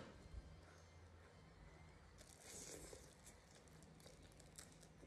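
Very quiet: a faint crinkle of clear plastic food gloves and soft bites as grilled shrimp is eaten, with a short rustle about two to three seconds in and a few small ticks.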